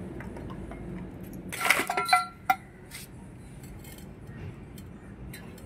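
Metal clinking as a spanner and small steel parts knock against an aluminium engine crankcase half: a few sharp, briefly ringing clinks about two seconds in, then light ticks and clicks as a bolt is worked.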